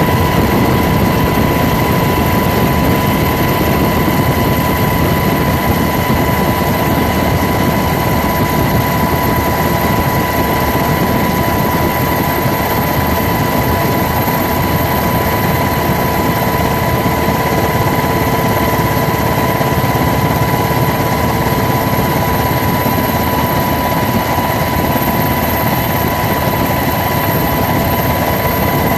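Steady helicopter engine and rotor noise heard from aboard the filming aircraft: an unbroken low rumble with a constant high whine over it.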